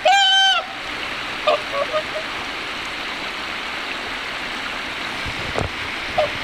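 Swans calling: one loud, clear honk right at the start, then a few faint short calls about one and a half to two seconds in and again near the end, over a steady rushing background.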